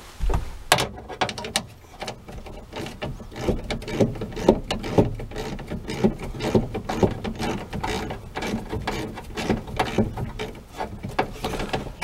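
Socket ratchet with an 8 mm socket clicking rapidly and unevenly as it backs out a screw holding the liftgate latch actuator motor.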